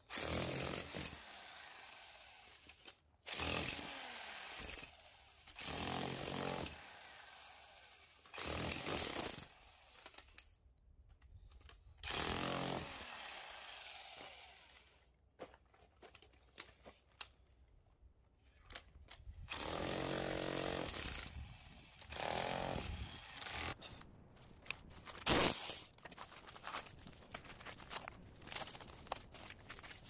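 Electric hammer drill with a flat chisel bit, run in repeated bursts of a second or two, chipping the aluminium fins off the copper tubes of an air-conditioner radiator (condenser coil). Near the end the drilling stops, one sharp crack is heard, and then only light clicks of metal being handled.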